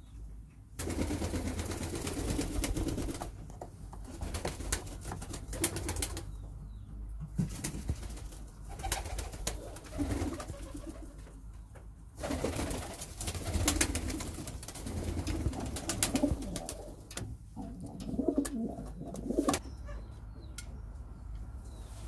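Domestic pigeons cooing in a loft, in several low, throaty stretches with quieter gaps between, mixed with short scuffs and rustles.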